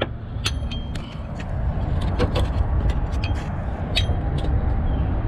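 Irregular metallic clinks and ticks of a socket, universal joint and extension working a starter mounting bolt loose, several ringing briefly, over a steady low rumble.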